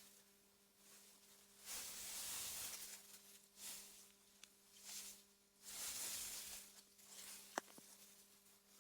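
Soft wind through meadow grass, rising and falling in several gentle gusts of hiss, over a faint steady low hum. One sharp click sounds near the end.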